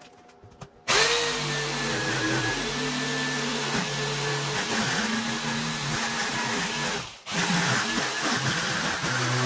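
Corded jigsaw cutting through a C4 Corvette's removable roof panel: a few faint clicks, then about a second in the saw starts and runs steadily with a motor whine. It stops for a moment about seven seconds in and starts cutting again.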